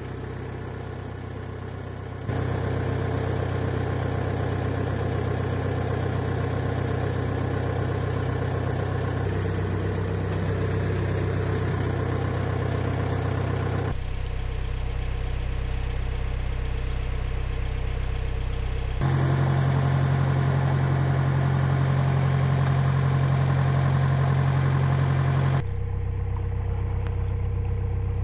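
Narrowboat's diesel engine running steadily at cruising speed. Its note changes abruptly a few times.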